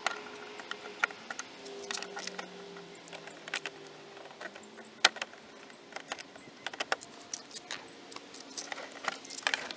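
Plastic push-pin clips on an engine-bay cover being pried loose with a trim-clip removal tool: a scatter of sharp clicks and snaps, the loudest about five seconds in.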